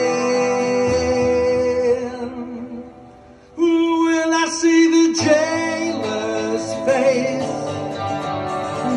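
Live rock song played on electric and acoustic guitars, an instrumental passage between sung lines. The held notes die away about two seconds in, and the guitars come back in sharply about three and a half seconds in.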